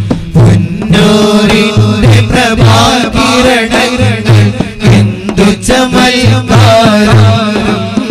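A group of men singing a Malayalam Islamic devotional song in praise of Madina into microphones, one ornamented melody line, over a repeating drum beat.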